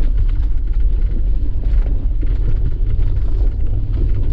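4x4 truck's engine and drivetrain running with a steady low rumble as it crawls over a rough, frozen dirt trail, with light rattles mixed in.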